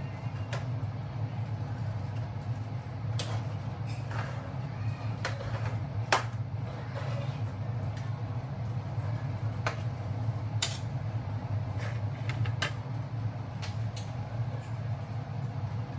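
A spoon stirring noodles in sauce in an aluminium wok, knocking and scraping against the pan with scattered sharp clinks every second or two, over a steady low hum.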